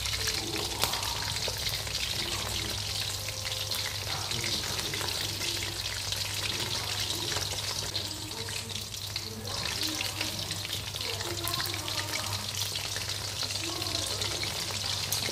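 Flour-coated chicken wings frying in hot oil in a wok over low heat: a steady sizzle thick with small crackles and pops, over a low steady hum.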